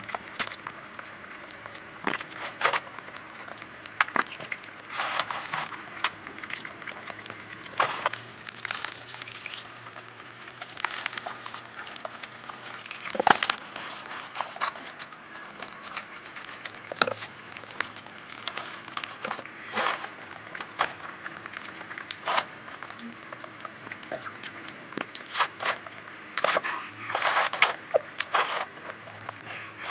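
Close-up eating sounds: crunchy bites, chewing and mouth smacks that come irregularly every second or two, with a denser burst of crunching near the end.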